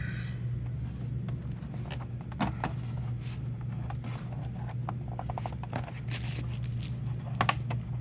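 Scattered light clicks, ticks and a scrape of hands handling the plastic and metal back cover of an all-in-one PC as it is pulled up, with a short hissy scrape about six seconds in and two sharp clicks near the end, over a steady low hum.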